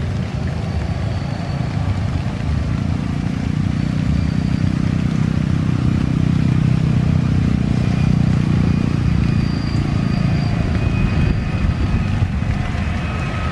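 Airbus A320 jet engines at takeoff power during the takeoff roll: a steady low roar with a faint high whine, mixed with road traffic passing close by. The low hum swells through the middle of the stretch.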